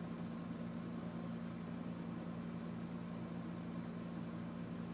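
A steady low hum with a faint, even hiss behind it, unchanging throughout.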